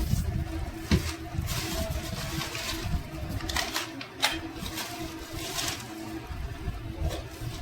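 Metal gearbox parts being handled on a workbench: a few sharp clicks and knocks, about a second in and again around four seconds, with short scraping sounds in between.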